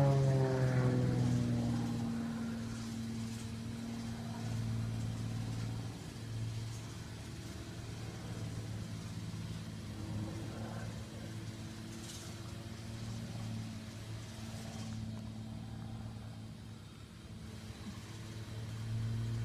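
Propeller airplane flying low past, its engine note dropping sharply in pitch as it goes by at the start, then a steady drone fading into the distance. Near the end an engine note rises in pitch and grows louder as a plane comes back.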